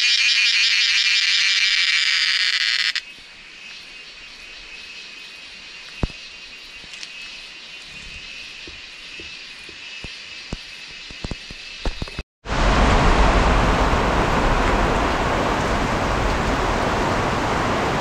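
A loud, pulsing buzzing chorus of forest insects cuts off after about three seconds, leaving a quieter stretch with scattered light clicks. After a brief dropout, heavy rain sets in with a steady, dense hiss.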